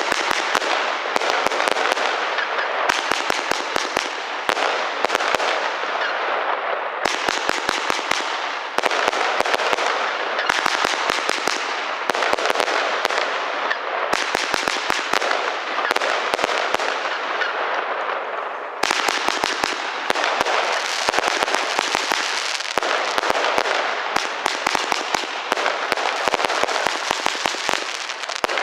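Lesli 'Prezident Piro' 144-shot firework cake firing: rapid sharp bangs over a dense crackle. The sound changes character every few seconds as new sections of the cake go off.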